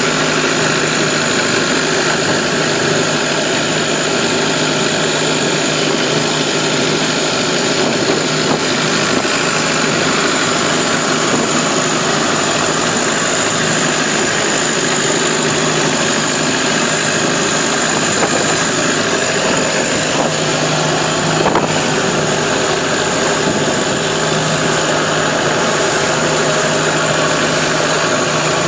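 Longtail boat's open automotive engine on its long propeller shaft running steadily at cruising speed, loud and close. One brief thump about two-thirds of the way through.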